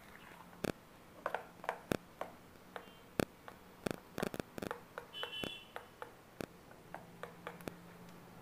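A spoon clinking and knocking irregularly against a stainless steel bowl while thick banana pancake batter is stirred, with soft wet mixing in between. A brief high beep sounds about five seconds in.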